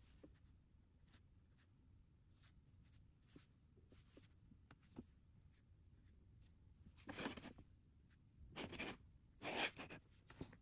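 Paintbrush stroking across watercolor paper: faint short strokes, then three louder swishes of about half a second each in the last four seconds.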